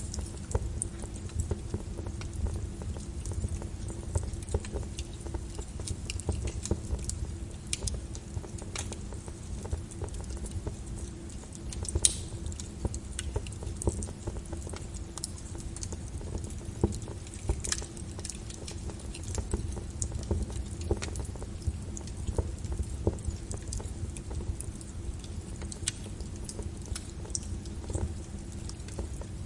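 Wood fire crackling in a fireplace: irregular sharp pops and snaps over a low steady rumble, with a few louder pops now and then.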